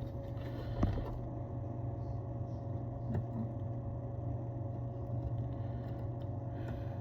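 Steady low hum of a small electric motor running, with a faint steady whine above it and a light click about a second in.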